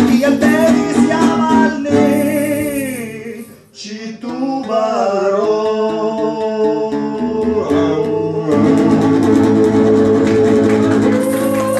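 Two men singing the slow closing line of a song in Esperanto to a strummed acoustic guitar, with a tambourine in the opening seconds. The music breaks off briefly about four seconds in, then the last line is drawn out over long held notes and ends on a sustained final chord near the end.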